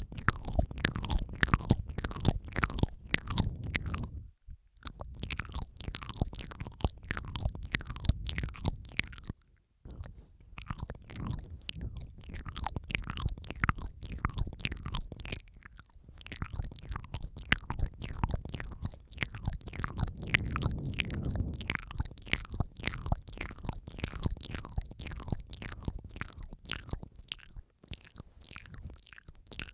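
Layered ASMR mouth sounds close to the microphone: a dense run of wet clicks, smacks and licking noises, several tracks overlapping, with brief pauses about four and ten seconds in.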